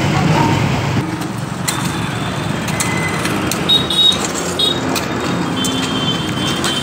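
Road roller engine running amid street traffic for about a second, then street traffic noise with short high beeps and a few sharp clicks from the road-repair work.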